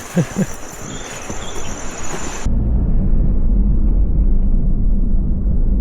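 Insects chirring steadily outdoors for about two seconds, then a sudden cut to a loud, steady low rumble.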